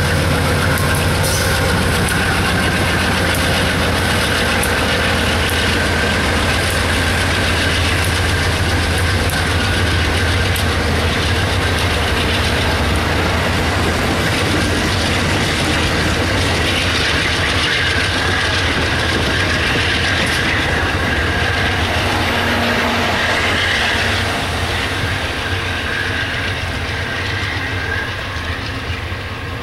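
Diesel-hauled passenger train passing, with a GE Genesis locomotive: a steady low engine drone over wheels clicking on the rails and a thin wheel squeal. It fades somewhat about three-quarters of the way through as the train moves off.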